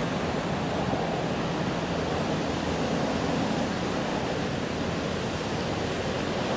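Ocean surf breaking and washing ashore, a steady even rush, with some wind on the microphone.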